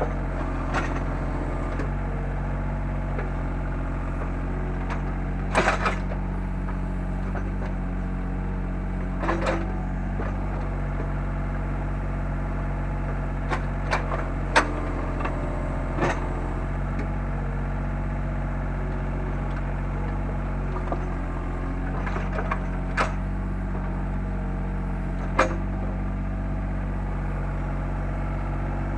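Takeuchi TB125 mini excavator's diesel engine running steadily while digging post holes, with a handful of sharp knocks and clanks from the bucket and arm.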